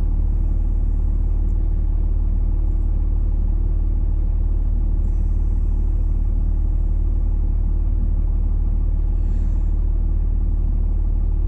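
A vehicle's engine idling, heard from inside the cab as a steady low rumble with a faint constant hum.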